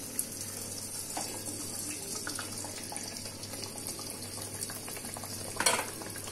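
A ball of paniyaram batter deep-frying in hot oil in an aluminium kadai: a steady sizzle with fine crackling bubbles. A short clatter sounds near the end.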